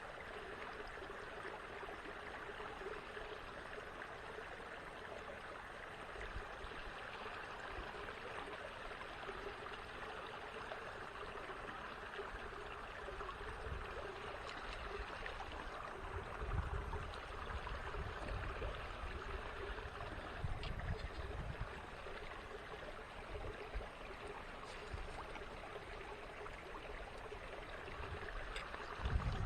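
Small creek water running and trickling steadily. Low rumbling buffets come and go in the middle and near the end.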